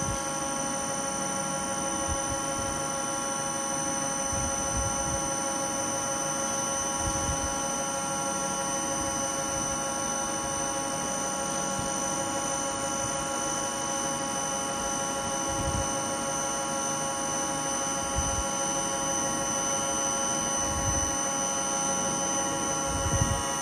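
2000 L horizontal ribbon blender running with its main mixer motor and two chopper motors on an inverter drive at about half speed: a steady electric whine made of several fixed tones over a low mechanical rumble. A few soft low thumps come through now and then.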